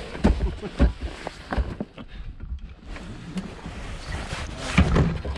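Footsteps squelching through deep riverbank mud: a string of irregular, heavy low thuds as feet sink in and pull out.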